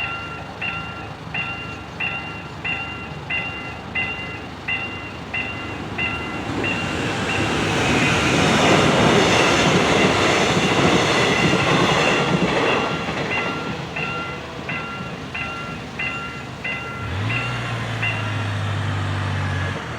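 Level-crossing warning bell ringing in a steady two-tone pattern, about one and a half strokes a second, while a Mugunghwa passenger train passes over the crossing: the train's rush of noise swells up and drowns the bell in the middle, then dies away. The bell rings on after the train has gone and stops near the end, as a low steady hum starts.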